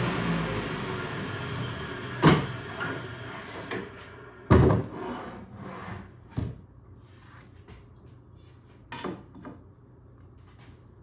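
A table saw fitted with a dado blade winding down after a cut, its running noise fading away, then several sharp wooden knocks as plywood pieces are set down and handled. The loudest knocks come about two seconds in and again near the middle.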